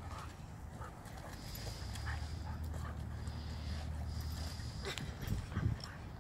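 Two dogs play-wrestling: low play-growling and the scuffle of paws in wood chips, with a few louder scuffles near the end.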